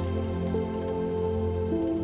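Soft ambient music with slow, sustained notes that shift pitch twice, over a faint, light patter.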